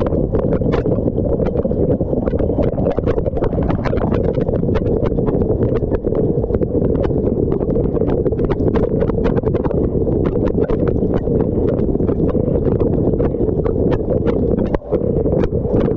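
Dishwasher running its wash cycle, heard from inside the machine: water spraying against the camera in a steady low rumble with a dense patter of drops, briefly dipping near the end.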